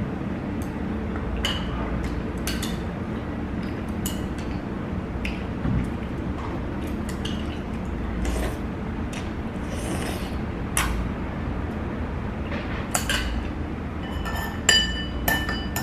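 Eating udon noodles with wooden chopsticks from a ceramic bowl: scattered taps of the chopsticks on the bowl and slurping of noodles, over a steady low room hum. Near the end the chopsticks strike the bowl with a ringing clink.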